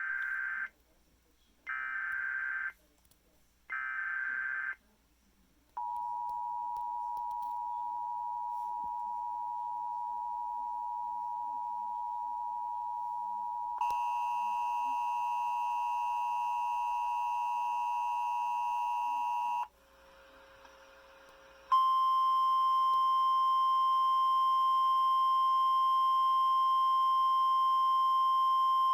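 Emergency Alert System alert tones. It opens with three short bursts of SAME header data, each about a second long. Then comes the two-note EAS attention signal, held for about eight seconds, then a different steady multi-note tone for about six seconds, a brief faint hiss, and from about 22 seconds in the loud, steady single-pitch NOAA Weather Radio warning alarm tone.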